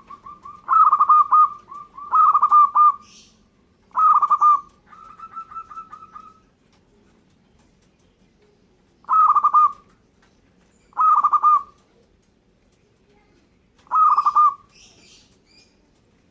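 Zebra dove (perkutut) cooing: its song of fast, rippling staccato coos comes in about six loud phrases separated by pauses, with softer runs of coos near the start and after the third phrase.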